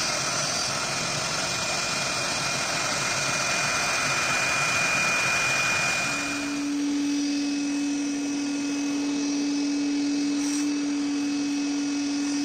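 Avid CNC router spindle running with a high whine as its V-bit carves an end-grain wood board. About halfway through, the cutting noise drops away and a shop vacuum's steady drone takes over.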